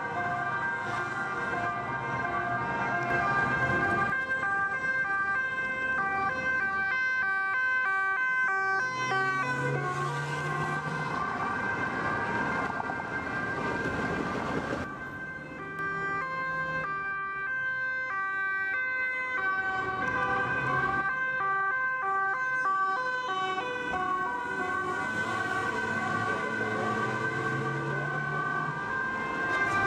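Police car sirens sounding as the cars drive by on urgent calls: Dutch two-tone sirens stepping back and forth between two pitches. Traffic and tyre noise lie underneath.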